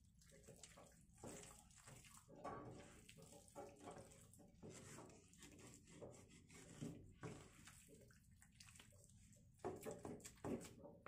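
Faint, irregular wet sloshing and scraping as a thick turnip and rice-flour batter, thinned with boiling water, is stirred in a pan, with a few louder strokes near the end.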